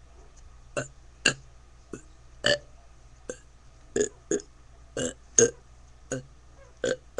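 A person burping again and again: about eleven short belches in a row, roughly half a second to a second apart.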